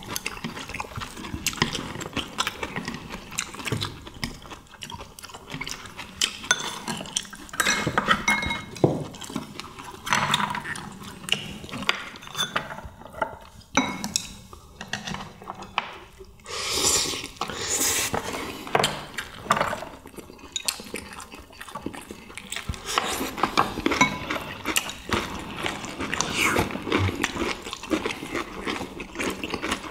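People eating a meal: chopsticks and spoons clinking and scraping on ceramic bowls and plates, mixed with chewing.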